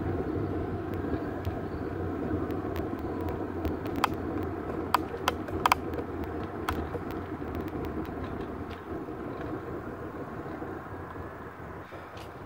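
Bicycle rolling along an asphalt path, heard from the handlebars: steady tyre and wind rumble with a few sharp clicks and rattles about four to six seconds in, fading as the bike slows to a stop.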